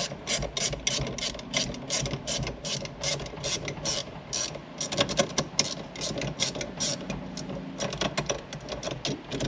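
Ratcheting wrench clicking in quick runs of about five or six clicks a second, turned in reverse, with faster bunches of clicks near the middle and towards the end.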